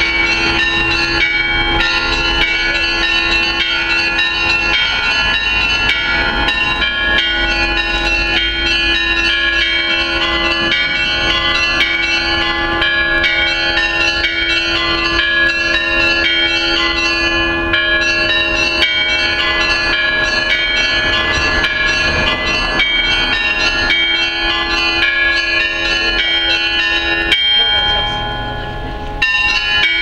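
Orthodox church bells ringing a continuous peal by hand: many bells struck in quick, overlapping succession over a steady lower bell tone. The ringing briefly drops in loudness near the end, then picks up again.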